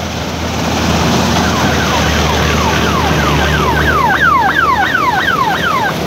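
Jasse 998 combine harvester running steadily while harvesting paddy in second gear, a low engine hum under the noise of the machine. From about a second and a half in, a rapid series of falling high-pitched sweeps, about four a second, grows louder and stops near the end.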